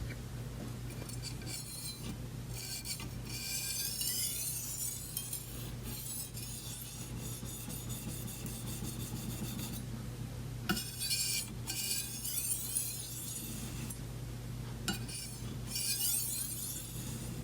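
Chef's knife blade stroked lightly along a Spyderco ultra fine ceramic finishing stone: a fine, smooth hiss in long passes with a few short breaks and light clicks as the blade is repositioned. The smooth sound marks a very fine edge being refined on a finishing stone.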